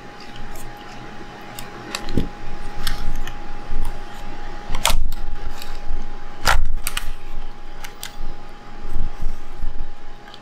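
Small clicks and taps of a precision screwdriver and tiny screws being worked on a Sony A7R camera body, with two louder knocks about five and six and a half seconds in. A small fan hums steadily underneath.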